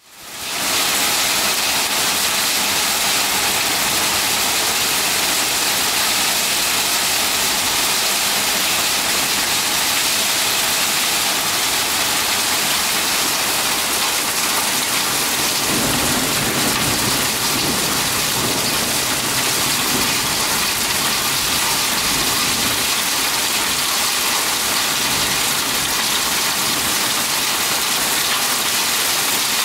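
Heavy rain falling steadily in a storm, a dense, even hiss that fades in at the start. A low rumble swells briefly about halfway through.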